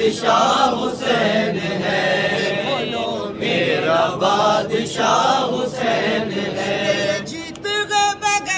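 A group of men chanting an Urdu devotional song in praise of Imam Hussain together, unaccompanied by instruments. A little after seven seconds in, the sound thins to fewer, clearer voices.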